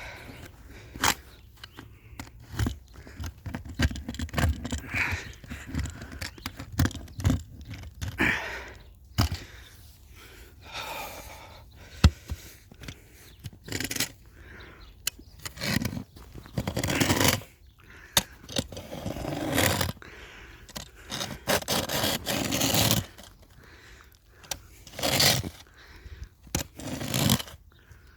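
A hand tool used as a shovel scraping and digging into packed snow, giving irregular scrapes, crunches and knocks, with one sharp knock about twelve seconds in.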